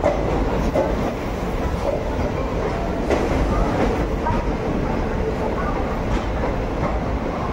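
Passenger train running along the track: a steady rumble of the coach, with a few faint clicks of wheels crossing rail joints.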